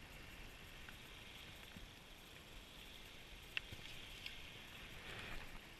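Faint, steady outdoor background hiss, with two small clicks past the middle.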